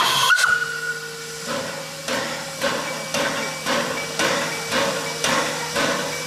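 Tk3 steam locomotive giving a short whistle toot in the first second, then starting its exhaust beats about 1.5 s in: chuffs about twice a second with hissing steam from the cylinders as it pulls away from a standstill.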